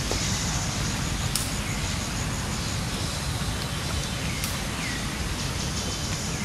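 Steady low outdoor background rumble, with two sharp faint ticks about three seconds apart and a couple of short descending chirps in the middle.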